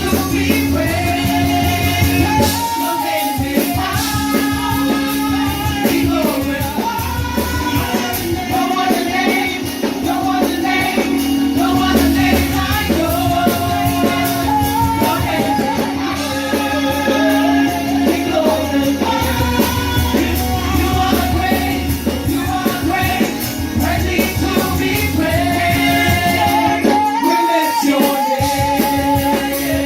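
Worship band playing a song with a sung melody over the band, steady throughout.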